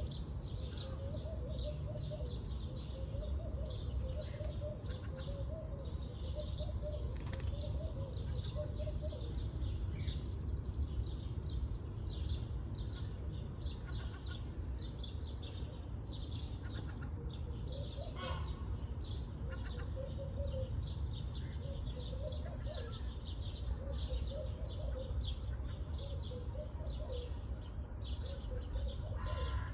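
Pet parrot chirping, many short high chirps in quick succession throughout, over a steady low rumble.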